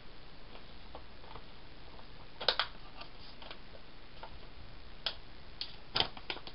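Scattered light clicks and taps of paper and planner stickers being handled at a desk, with louder pairs of clicks about two and a half seconds in and again near the end.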